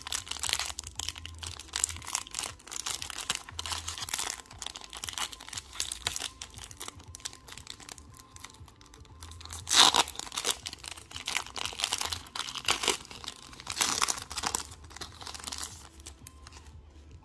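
Foil-lined Pokémon card booster pack being crinkled and torn open by hand: continuous crackling of the wrapper, with the loudest rips about ten and fourteen seconds in.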